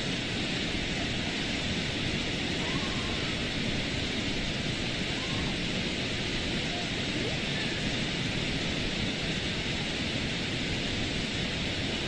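Waterfall pouring into its plunge pool close by: a steady, unbroken rush of falling water.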